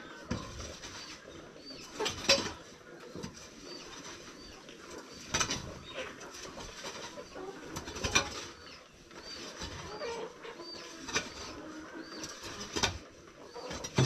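A hand tool scraping and striking the sawdust-and-manure floor litter of a poultry house, about six strokes a second or two apart. Birds call faintly in the background.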